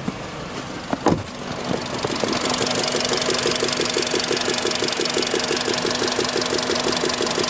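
Car engine at operating temperature idling with a fast, even ticking, which the owner puts down to a hydraulic valve lifter that knocks only when the engine is hot. There are a couple of sharp clunks about a second in, and from about two seconds the engine and its ticking are louder.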